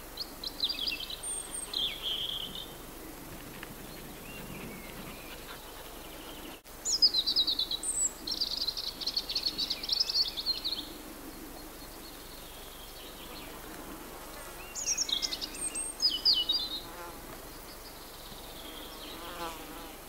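A songbird singing three long phrases of rapid, high trilled notes a few seconds apart, over a low buzz of flying insects.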